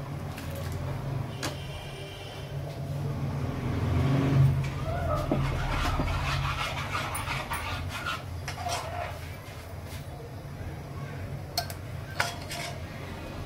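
A dog whining and barking in the background over a steady low hum, with a few ladle clicks against a metal kadhai near the start.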